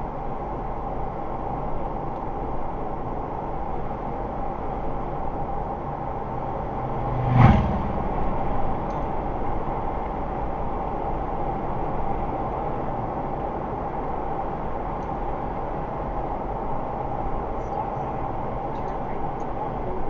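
Car driving along a road: steady tyre and engine noise, with a single thump about seven and a half seconds in.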